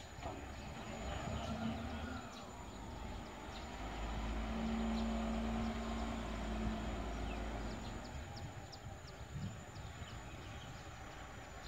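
Distant diesel engine of a reach stacker working in a rail container yard, swelling into a steady low hum for a few seconds midway and then easing off, with scattered faint ticks near the end.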